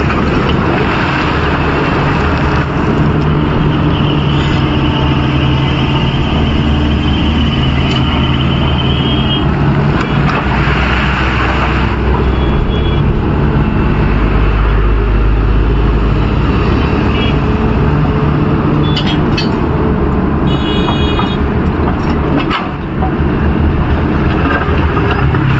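A large crawler excavator's diesel engine running steadily with a deep drone, against road traffic. A short run of high-pitched tones sounds near the end.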